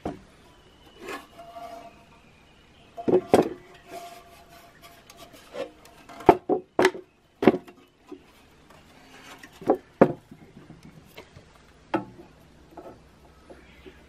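Irregular knocks, clunks and scraping from a rusty steel dozer-shovel control-panel housing being shifted and handled on a plywood board, with a few sharp metal knocks.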